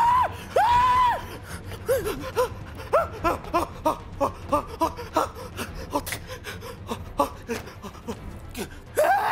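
A person's voice: two drawn-out rising-and-falling cries in the first second, then a quick run of short, high gasping yelps, several a second, until near the end.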